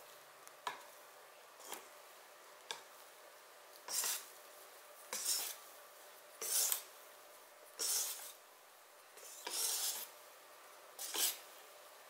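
Wire balloon whisk folding meringue into egg-yolk batter in a stainless steel bowl: a few light clicks of the wires against the bowl about once a second, then six longer scraping strokes through the batter about every second and a half.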